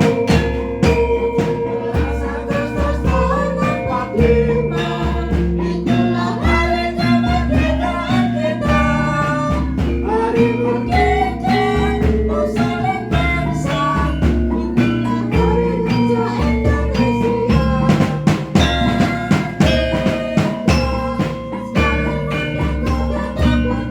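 Band music being rehearsed: drums and bass keep a steady beat under melodic instruments, with some singing.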